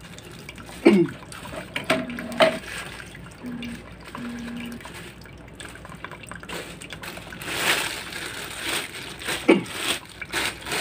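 Water from a circulation hose pouring and trickling into a basin of liquid, with louder splashing from about seven seconds in. There are two brief sounds falling in pitch, about a second in and near the end.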